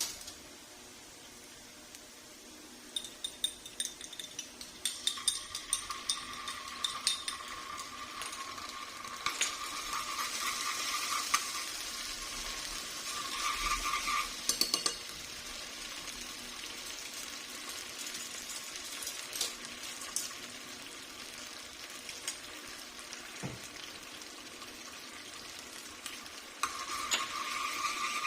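Food sizzling in a pan of hot oil while it is stirred, with a utensil clicking and scraping against the pan.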